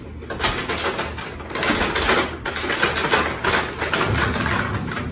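Brown paper bag crinkling and scraping across a hardwood floor as a cat moves about with its head stuck inside it, in irregular rustles and clicks.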